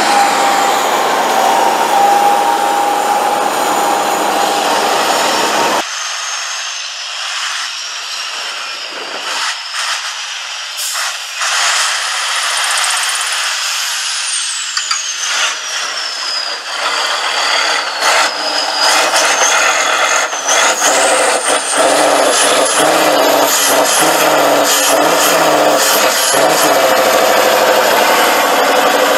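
Tatra 815 6x6 trial truck's diesel engine working under load as the truck crawls through deep mud. A high whistle falls and then rises in pitch, with scattered clicks and knocks; the deep engine note drops away about six seconds in and comes back in the later part.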